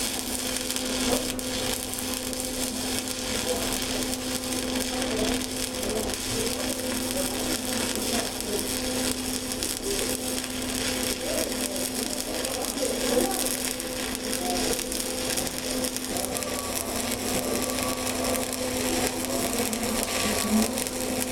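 Stick-welding arc from a 7018 electrode crackling and sizzling steadily while laying an overhead hot pass, over a steady low hum.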